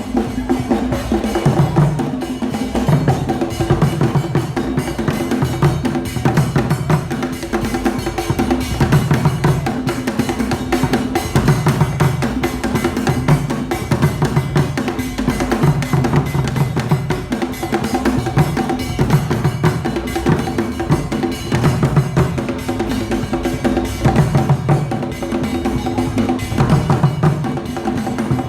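Kete drum ensemble, the Akan royal drumming, playing a dense, steady interlocking rhythm with repeated deep drum strokes under faster high drum and percussion strokes.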